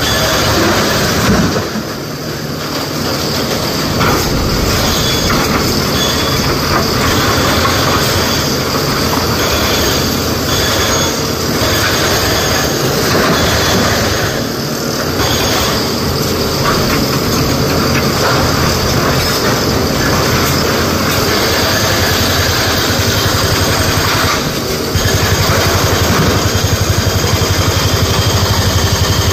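SANY SY225 crawler excavator working: its engine and hydraulics run under load as the bucket digs, swings and dumps broken rock into a tipper truck's steel body, giving a steady loud mechanical din with metallic grinding. It gets louder about 25 seconds in.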